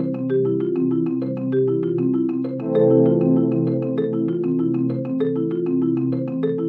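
Background music: a mallet-percussion melody in quick, repeated marimba-like notes over a steady lower accompaniment.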